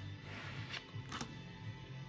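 Background music with a steady, pulsing low line, and a brief sharp sound about a second in.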